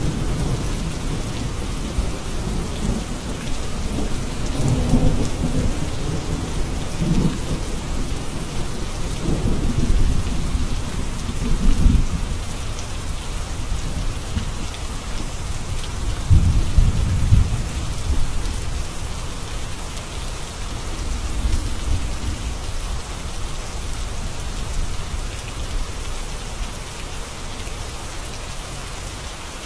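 Steady rain hissing throughout, with low rolling thunder rumbling several times; the loudest rumbles come about twelve seconds in and again around seventeen seconds, and the thunder dies down in the last third.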